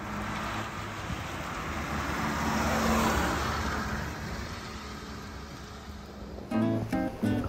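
Road traffic: a car passing, its tyre and engine noise swelling to a peak about three seconds in and fading again over a low steady hum. Acoustic guitar music comes in near the end.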